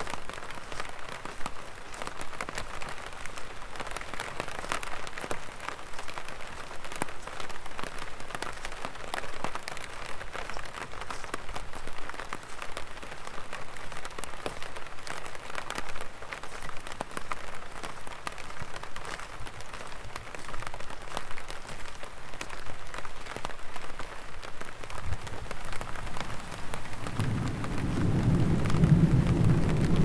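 Light rain falling on an umbrella, a dense run of small drop ticks. A low rumble of thunder builds from about twenty-five seconds in and is loudest near the end.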